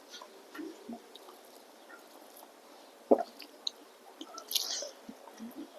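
Close-miked chewing and wet mouth sounds of someone eating, with scattered small clicks. A sharp click comes about three seconds in, and a short hiss follows about a second and a half later.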